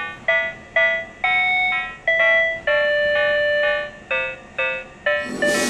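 PATLITE electronic signal-clear annunciator on a Tobu Railway platform playing its melody of short electronic notes, the tone that tells a one-man train's crew the starting signal has cleared. A rush of hiss swells in near the end.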